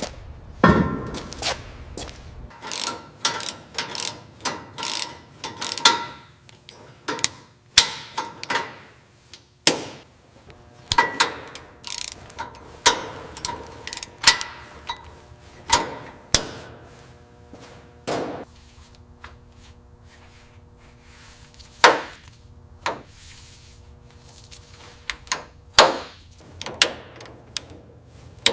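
Hand tools working on metal car parts: a long run of irregular metallic clinks, taps and clanks, some ringing briefly. A faint steady hum sits under the middle part.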